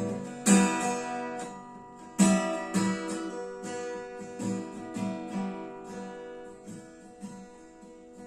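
Acoustic guitar music: a firm strummed chord about half a second in and another about two seconds in, then lighter picked notes that gradually get quieter.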